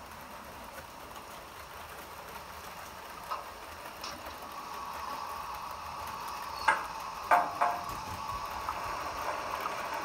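Model train running past on the layout track, a steady hum that grows louder, with a few sharp clicks of the wheels over rail joints or points, three of them close together about two thirds of the way in.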